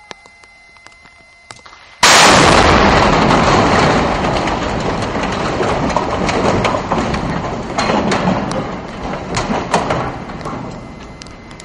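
Explosive demolition of a highway bridge: a sudden blast about two seconds in, followed by the crash and rumble of the falling structure, with scattered sharp cracks, dying away over about eight seconds.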